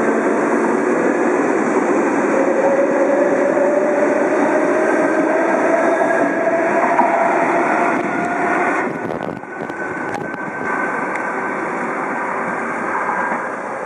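Trensurb electric multiple-unit train running past the platform as it pulls away, with a motor whine that rises slowly in pitch over a steady rolling noise. About nine seconds in, the sound breaks off with a few clicks and gives way to steadier, quieter noise with wind on the microphone.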